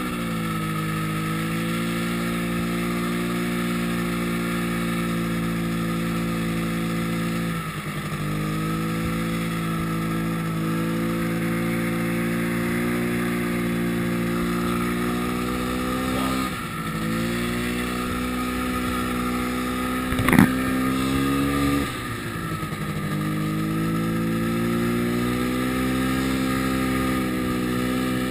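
Yamaha snowmobile engine running steadily under throttle while riding through deep snow. Its pitch dips and climbs back three times as the throttle eases off and on. A sharp knock comes about twenty seconds in, followed by a brief louder stretch.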